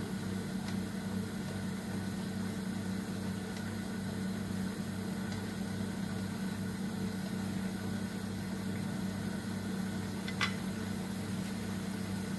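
Steady low machine hum, pulsing slightly, with one short light click about ten seconds in.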